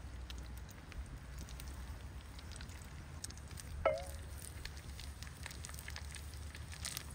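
A cooking fire crackling, with scattered irregular pops over a low steady rumble. A louder short knock with a brief ringing tone comes about four seconds in.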